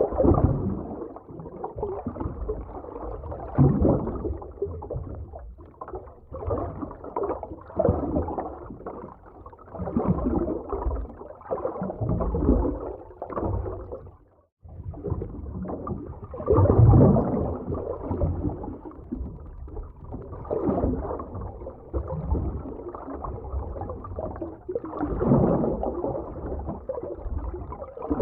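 Underwater ocean ambience: muffled rushing of water that swells and fades every couple of seconds, cutting out for a moment about halfway.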